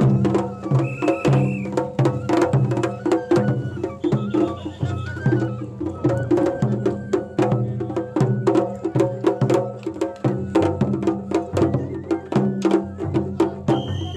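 Japanese festival music (matsuri-bayashi) played on a festival float: drums and other percussion struck in a fast, steady rhythm over repeating low tones, with a few brief high notes.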